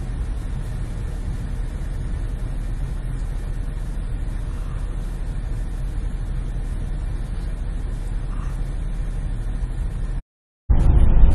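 Steady low rumble of an idling engine, with no change in pitch or level.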